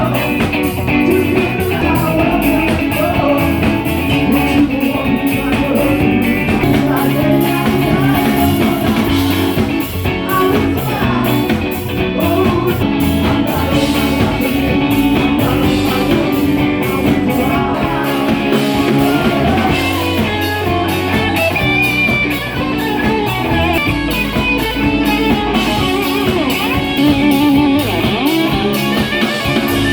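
Live rock band playing, with guitar to the fore over a steady drum beat.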